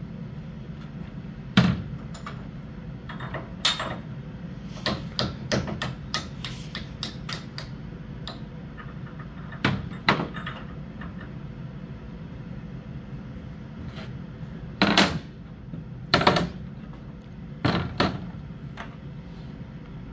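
Irregular metal knocks and clanks from work on a fairground ride's steel frame and checker-plate floor, about a dozen sharp strikes, some singly and some in quick runs, the loudest a little over a second in and a pair about fifteen and sixteen seconds in. A steady low hum runs underneath.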